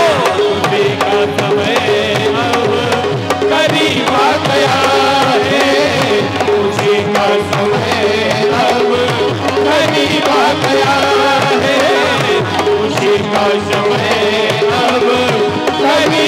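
Live Indian devotional bhajan music: tabla drumming under a continuous melody on a keyboard instrument, played as an instrumental passage with no words sung.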